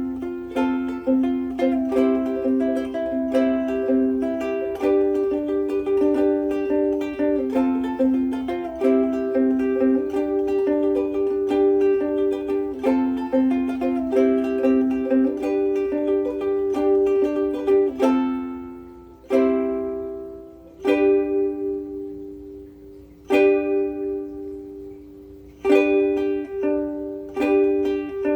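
Martin S1K koa soprano ukulele with Martin M600 strings, strummed in a steady run of chords. About two-thirds through, the playing thins to single strums left to ring out and fade, then steady strumming picks up again near the end.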